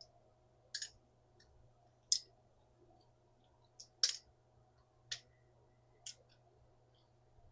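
A cooking utensil scraping and tapping against a skillet in short, sharp strokes, about one a second, as ground meat and spices are stirred. Under it is a faint steady hum.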